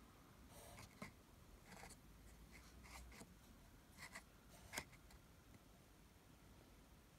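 Faint handling noise over near silence: a few short scratches and clicks, the sharpest about a second in and again near five seconds.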